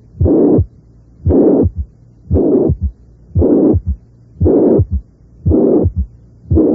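Recorded heart sounds of mitral regurgitation: a loud blowing systolic murmur with each beat, about one beat a second. From the second beat on, each murmur is followed by a short low sound, the third heart sound with its brief mid-diastolic rumble.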